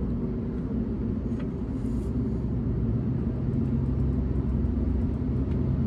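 A steady low motor rumble with a constant hum, with a few faint ticks over it.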